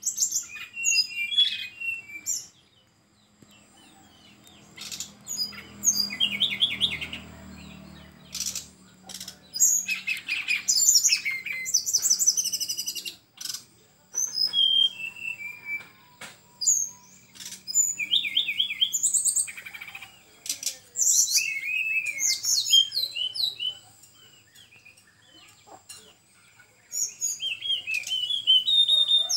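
Brown-chested jungle flycatcher singing in repeated short phrases of sharp, high, quick notes and trills, with brief pauses between phrases and a few sharp clicks among them.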